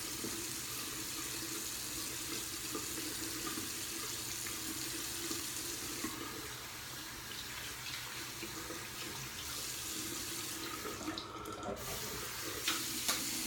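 Bathroom sink tap running steadily, water hissing into the basin; the hiss briefly dulls about eleven seconds in.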